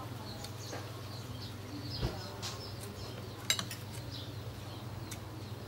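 Metal spoon and fork clinking against a plate while eating, with two sharp clinks, the louder about three and a half seconds in. Birds chirp faintly over a steady low hum.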